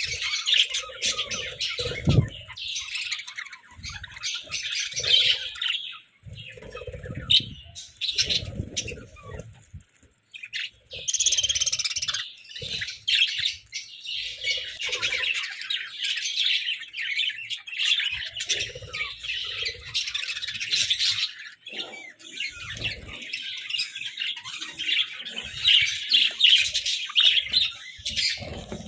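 A group of budgerigars chattering and chirping in a continuous, busy warble, with brief lulls and occasional short low thuds.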